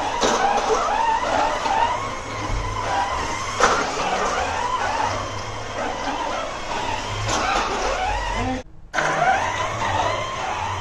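Electric drive motors of an FRC competition robot whining as it drives fast, the pitch gliding up and down with each acceleration and turn, over a low rumble of the drivetrain. The sound drops out briefly about nine seconds in and picks up again.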